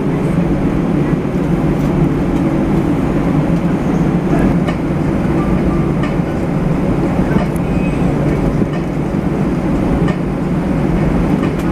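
Cabin noise of an Airbus A319-111 taxiing, heard inside the cabin: a steady low drone of its CFM56 engines at taxi power.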